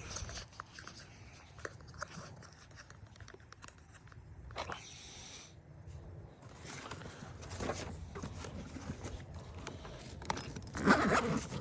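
Scattered light clicks, scrapes and rattles of hands and tools handling parts while working on an HVAC blower unit, over a low steady hum. A voice comes in briefly near the end.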